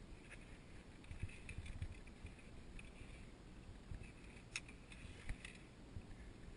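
Quiet via ferrata climbing noises: a low rumble with faint scuffing, and a few light clicks, the clearest about four and a half seconds in, from the climber's hands, boots and lanyard gear on the rock and steel cable.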